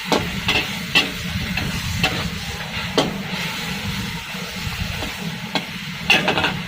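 Crispy pork being stir-fried in a wok: a steady frying noise with sharp clanks of a metal spatula against the pan about once a second, and a quick run of clanks near the end.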